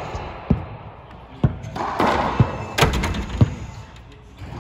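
A racquetball rally: about five sharp cracks of racquet on ball and ball off the court walls, each echoing around the enclosed court.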